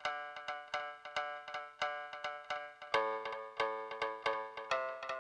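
Quiet instrumental intro of an alternative rock song: a repeating pattern of single picked notes, about four a second, each struck sharply and dying away, moving to a new set of notes about three seconds in.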